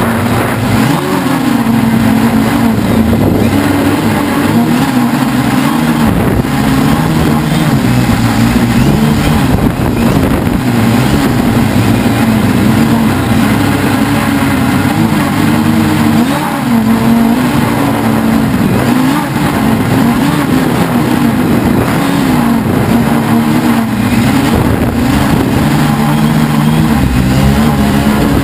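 Helimax Form 500 quadcopter's four electric motors and propellers buzzing in flight, recorded on board. The pitch wavers up and down every second or two as the motors speed up and slow down to hold and steer the craft.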